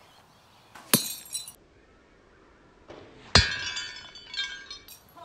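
A ceramic plate shattering as an arrow strikes it, with a sharp crash and tinkling shards after; it happens twice, about a second in and, louder, about three and a half seconds in.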